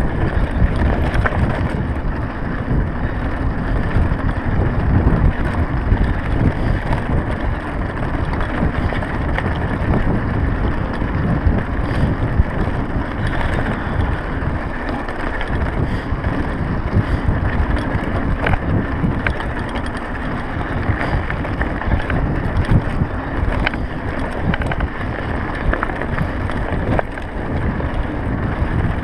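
Wind rumbling on the microphone of a mountain bike in motion, with the tyres running over a rough dirt and gravel track and small rattles and clicks from the bike over the bumps.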